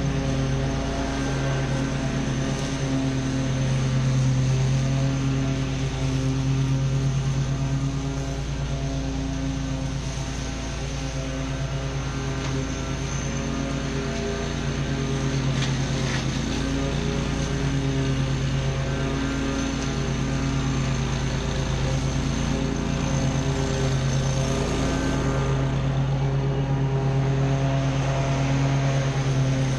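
Stand-on zero-turn mower engine running steadily at mowing speed with the blades cutting grass, a constant engine drone that barely changes as the mower moves around the lawn.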